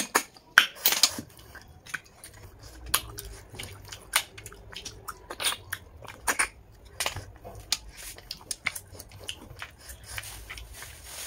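Close-up eating of cooked snails in the shell: many short, sharp clicks and smacks at irregular intervals as the snails are sucked out and chewed.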